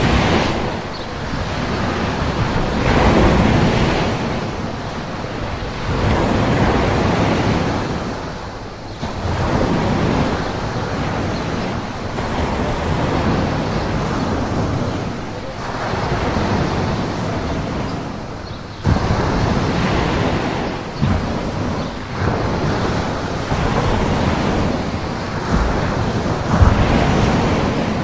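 Ocean surf breaking close in on a sandy shore and washing up the beach, swelling and ebbing every few seconds, with one sharper crash about two-thirds of the way through.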